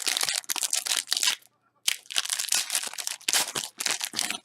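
A jumbo pack of trading cards being torn open, its wrapper crinkling and tearing. The sound comes in two bouts of dense crackling with a short pause between them.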